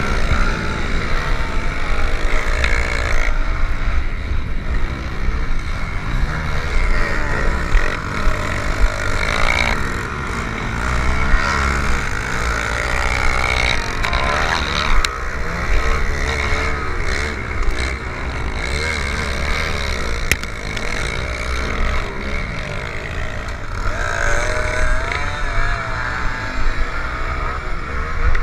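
Pit bike engines revving hard while racing, the pitch rising and falling as the bikes speed up and slow down. A heavy low rumble of wind buffets the helmet-mounted microphone.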